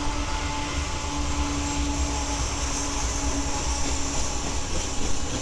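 Several BNSF diesel-electric freight locomotives passing at speed under power: a steady engine drone with a low rumble and a constant hiss.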